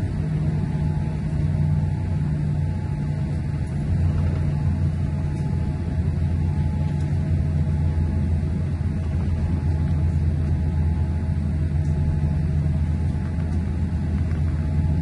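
Boeing 787 cabin noise while taxiing: the engines at idle make a steady low rumble, with faint steady hum tones above it. The rumble gets a little louder about four seconds in.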